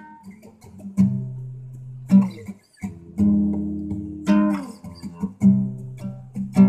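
Guitar strumming chords, one stroke about every second, each chord left to ring and fade before the next.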